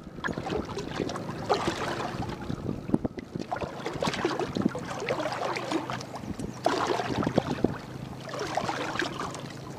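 Water lapping and splashing around a small pontoon fishing boat, with wind buffeting the microphone and scattered irregular clicks and spatters.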